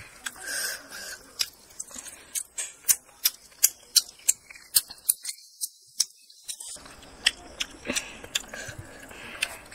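Close-up mouth sounds of a child eating cooked chicken heads by hand: a run of sharp smacks and clicks from chewing and finger-licking, about two a second. They thin out after about seven seconds.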